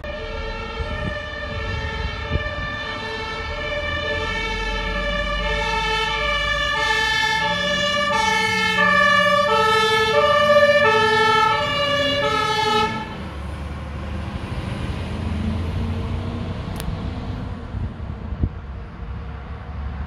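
German fire engine two-tone siren (Martinshorn) alternating between two notes about every two-thirds of a second as a turntable ladder truck drives past, with its truck engine rumbling underneath. The siren cuts off suddenly about 13 seconds in, leaving the engine and road noise.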